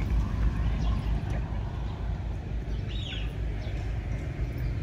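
Outdoor riverside ambience: a steady low rumble, with a brief bird chirp about three seconds in.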